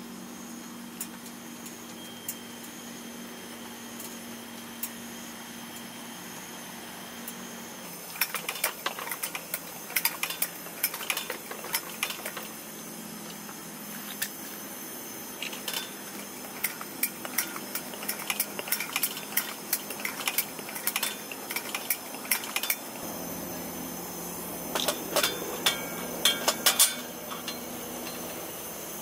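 Metal clinks and taps from handling a vintage Sears (Coleman-built) pressure lantern, including fitting its metal ventilator cap on top. The taps come in quick clusters starting about eight seconds in and running to near the end.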